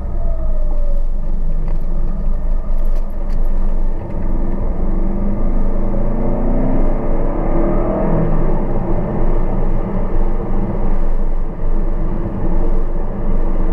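A car driving along a road: its engine runs over a steady rumble of road noise, and its pitch climbs about halfway through, then drops back.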